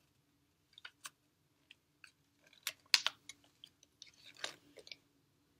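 Folded paper collector's guide being pulled out and unfolded: scattered crinkles and crackles of paper, loudest about three seconds in, with another flurry near four and a half seconds.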